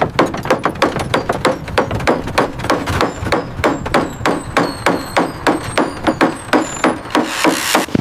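Fast footsteps crunching through snow, an even rhythm of about three to four sharp steps a second, like someone running or hurrying through deep snow.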